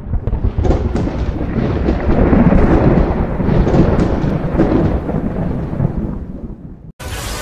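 Thunder rumbling and crackling, swelling over the first two seconds and slowly dying away, then cut off abruptly near the end.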